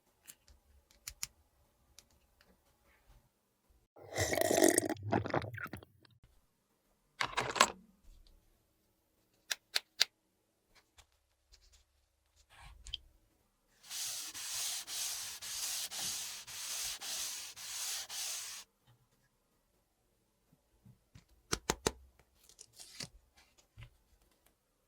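Plastic toy pieces and packaging being handled: scattered clicks, a rubbing, scraping burst about four seconds in, and a run of quick rhythmic rustling from about 14 to 18 seconds.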